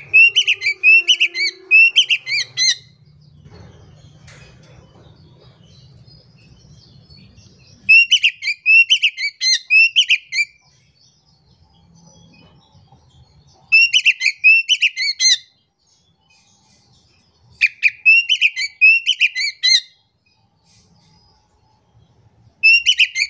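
Oriental magpie-robin singing in five loud bursts of two to three seconds each, every burst a rapid run of repeated high notes that fall in pitch, with quiet gaps between.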